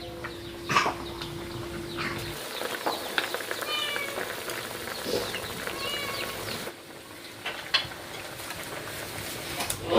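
A cat meowing twice, two short arched calls, over a steady hiss that stops about two-thirds of the way in.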